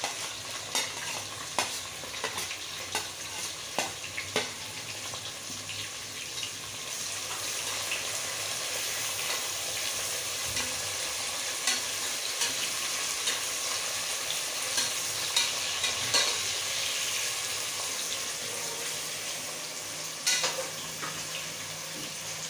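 Sliced onions sizzling in hot oil in a pressure cooker, stirred with a spoon that scrapes and clicks against the pot. The sizzle grows louder about seven seconds in as the onions fry toward brown.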